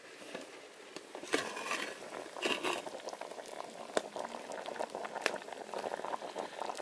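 Yam curry boiling hard in a steel pot, an even bubbling and fizzing with scattered small pops. It grows louder about a second in, once the lid is lifted off.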